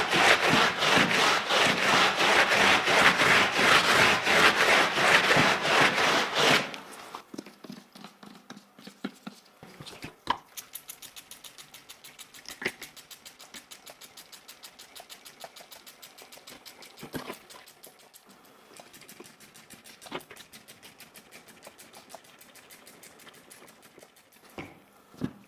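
Brisk, loud rhythmic scrubbing while cleaning a dirty computer keyboard's parts, which stops about six and a half seconds in. Then comes a fainter, faster rubbing with a few sharp clicks now and then.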